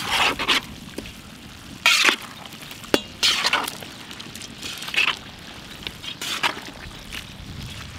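Pieces of fish frying in coconut oil in a pan, stirred with a spatula in irregular scraping strokes every second or so. There is a sharp clink of metal on the pan about three seconds in.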